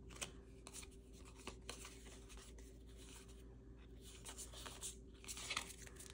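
Faint handling of Yu-Gi-Oh! trading cards: soft scattered ticks and rubs as cards slide over one another, a little busier near the end, over a faint steady hum.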